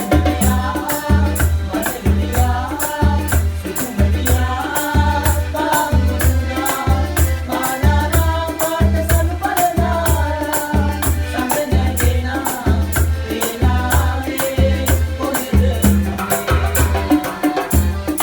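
Sinhala calypso-style band music with a steady beat: about two bass notes a second, a shaker keeping time, and a melodic line above.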